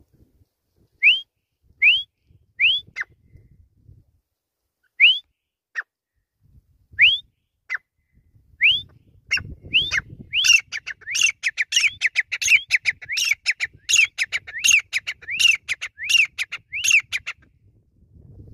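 Grey francolin calling: single short rising notes about one a second, then from about halfway a fast run of loud repeated call phrases, roughly two a second, that stops about a second before the end.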